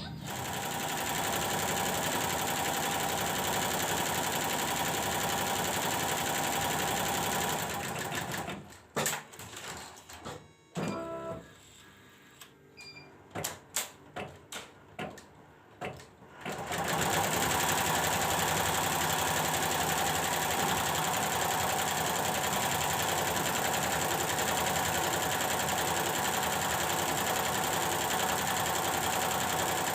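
Computerized embroidery machine stitching steadily during a test run after repair of its drive-unit power supply. About eight seconds in it stops, leaving a quieter stretch with a few short clicks. It starts up again about seventeen seconds in and runs steadily.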